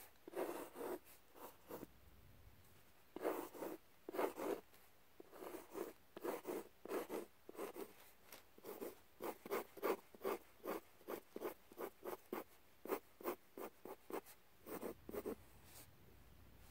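Pencil scratching on paper in many short, quick strokes, about two to three a second, as wing feathers are sketched, with a brief pause about two seconds in.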